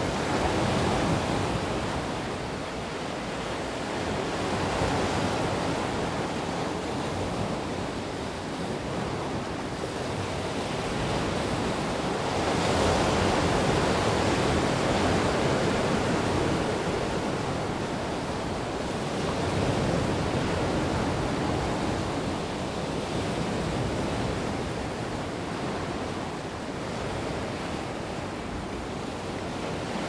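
Sea waves breaking and washing up over a beach of rounded stones, the surf swelling and easing every few seconds, loudest a little before halfway through.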